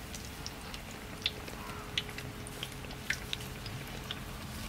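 Batter-coated bread pakoras deep-frying in hot oil in an iron kadai, the oil crackling with irregular sharp pops.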